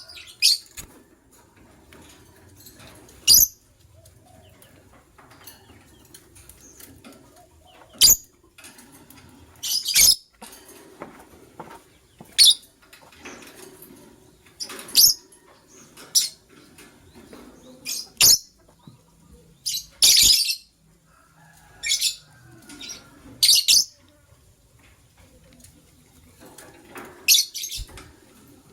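White lovebirds giving short, sharp, high-pitched chirps, one every second or two, some with a brief knock beneath them.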